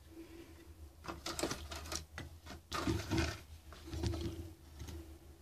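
Quiet, scattered handling sounds: a few clicks and knocks and some rustling at irregular moments, over a faint steady low hum.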